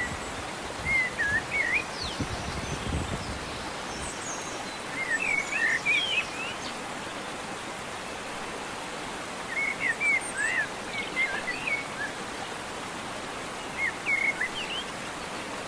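A songbird singing short warbled whistling phrases in four bursts, a few seconds apart, over a steady background hiss.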